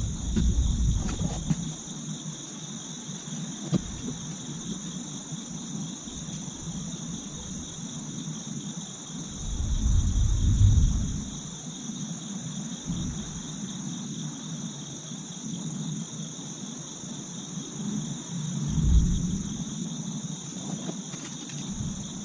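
Steady insect chorus, a continuous high trill at two pitches. Three low rumbles break in, the loudest about ten seconds in, with a few faint light knocks.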